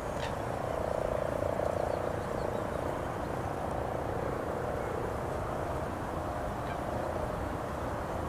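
Air ambulance helicopter in flight overhead: a steady rotor and engine hum that swells a little about a second in.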